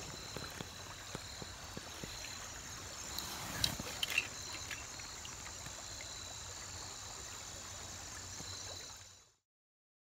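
Shallow creek water flowing over a stony bed in a steady rush, with a couple of brief sharper sounds about four seconds in. The sound cuts off abruptly near the end.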